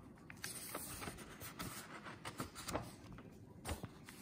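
Faint rustling and soft taps of a hand on the paper pages of a paperback book as a page is turned.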